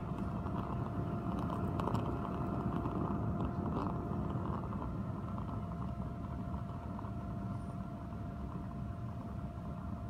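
Homemade tin-can gasifier stove burning waste motor oil: a steady low rumble of flame, with a steady hum from the small fan forcing air in through the hose. A few crackles in the first few seconds.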